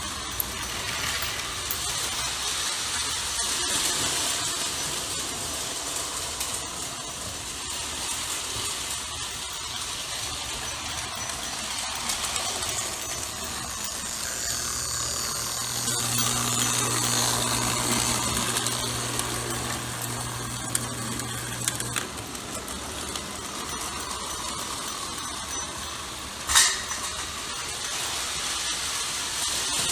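Vintage Lionel electric toy train running on its track: a steady mechanical whirring and clatter of the motor and wheels. A steady low hum comes in for several seconds in the middle, and there is one sharp click near the end.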